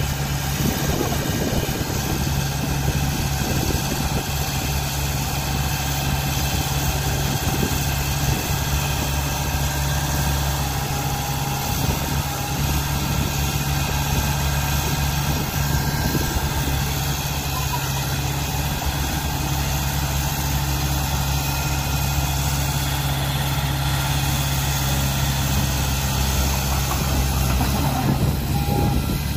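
Diesel engines of a dump truck and a small crawler dozer running steadily while the truck's raised bed tips out a load of sand.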